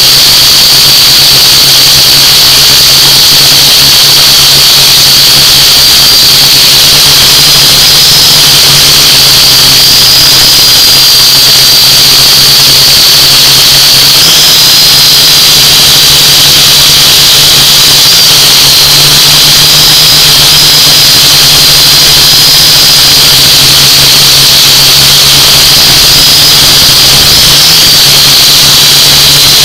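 A drone's electric motors and propellers whine steadily in flight, a loud high whine over a low hum. The pitch shifts slightly a few times as the motor speed changes, about halfway through and again near the end.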